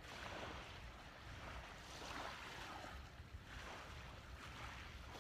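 Quiet beach ambience: faint surf washing in soft swells, over a low wind rumble on the microphone.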